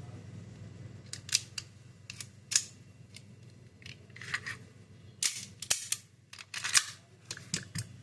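Sharp clicks and snaps from an airsoft CO2 pistol's mechanism, about a dozen at uneven intervals, some much louder than others.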